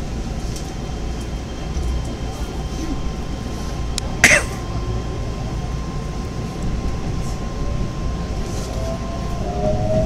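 Steady low rumble inside a Keihan electric train car as it pulls out of a station, with the traction motors' whine rising in pitch near the end as the train gathers speed. A short, loud burst of noise about four seconds in.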